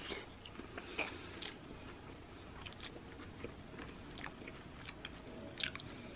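A person chewing a bite of cherimoya (custard apple) flesh: faint, scattered wet mouth smacks and clicks, with a slightly louder one about a second in.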